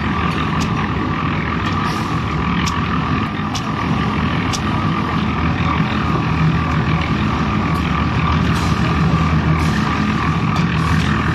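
Engine of concrete-pouring machinery running steadily with a low hum, with scattered sharp clicks and knocks over it.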